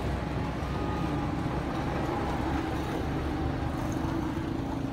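A steady low rumble with a faint droning hum, the sound of an engine running at a distance.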